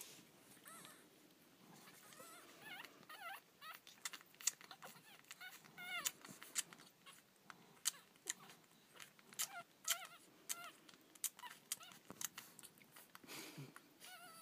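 Three-day-old miniature schnauzer puppies nursing: faint, high, wavering squeaks and whimpers, with many small sharp clicks of suckling.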